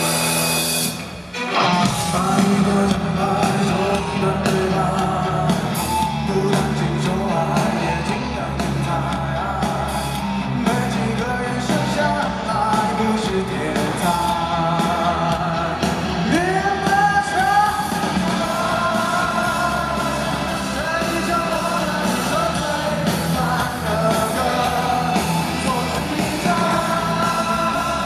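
A live rock-pop band plays while a male lead singer sings, with electric guitars, bass and drums, recorded from the audience in a concert hall. The music drops out briefly about a second in, then carries on.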